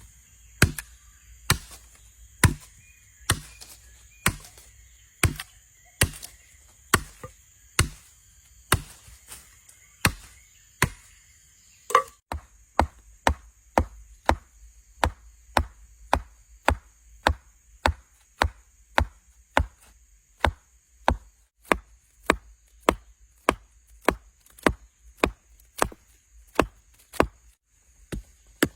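Steady, rhythmic chopping of wood with a blade, sharp strikes about once a second at first, then faster, nearly two a second, after about twelve seconds.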